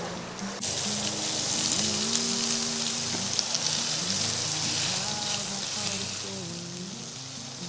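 Pork slices sizzling on a moo kratha domed grill pan, a dense hiss with scattered crackles and spits that starts suddenly about half a second in. Quiet background music with a melody plays underneath.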